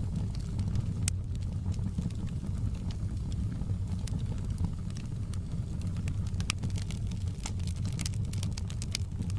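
Wood fire crackling in a fireplace: sharp pops and snaps over a steady low rumble, the pops coming thicker near the end.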